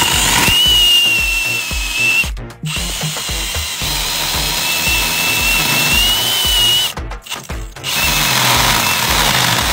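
Power drill spinning a bladed pipe-reaming bit that grinds a glued 1.5-inch plastic pipe out of a shower-drain fitting, with a steady high whine as it cuts. The drill stops briefly twice, once about two seconds in and again about seven seconds in.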